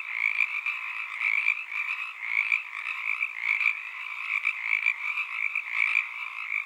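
A steady chorus of many frogs calling over one another, with no pauses.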